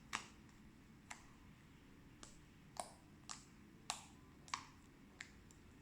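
Fluffy slime being squeezed and pressed in the hands, giving faint sharp clicks and pops as trapped air pockets burst, about nine of them at uneven intervals.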